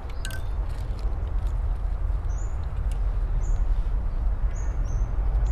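A few short, high bird chirps, roughly one a second, over a steady low rumble.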